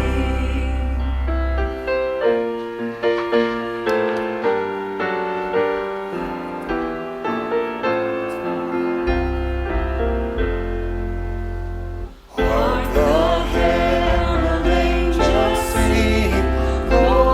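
Worship music: piano notes over a deep held bass, dropping out briefly about twelve seconds in, then returning fuller with voices singing.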